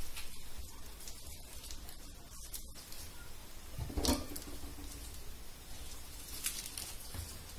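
Light patter and scattered soft clicks of fresh vegetable leaves being handled during slicing and washing, with one louder clatter about four seconds in, over a steady low hum.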